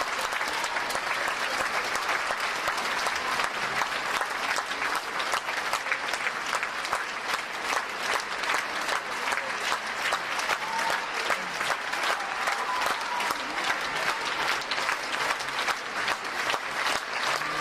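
Theatre audience applauding: steady, dense clapping from a large crowd.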